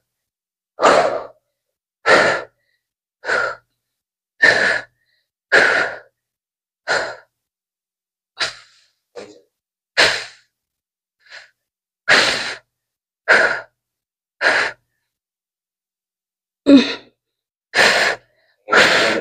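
A person breathing hard while exercising: short, forceful breaths out, about one a second, with a pause of about two seconds before they come closer together near the end.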